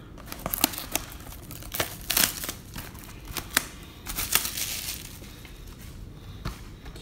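Plastic wrapping crinkling and tearing as it is pulled off a sealed trading-card box, in a run of irregular crackles and snaps that thin out about five seconds in.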